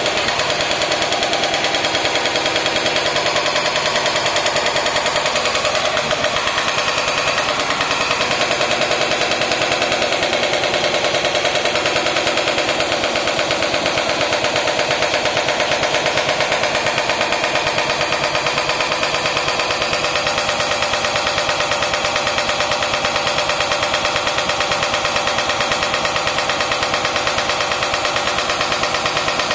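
Hydraulic rock breaker on a Caterpillar backhoe loader hammering its chisel into rock, a rapid, steady run of loud impacts.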